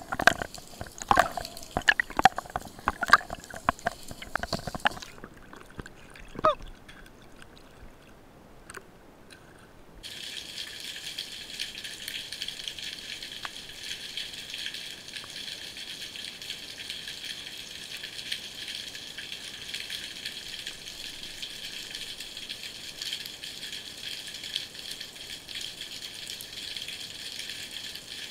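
Underwater sound picked up by a diver's camera. For the first few seconds there are irregular clicks, knocks and gurgling bubbles. Then it quietens, and about ten seconds in, after a cut, a steady high hiss with fine crackling takes over.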